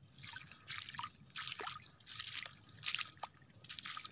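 Footsteps splashing and squelching through shallow water on a wet tidal flat: a wet slap about every three-quarters of a second, with small drips between.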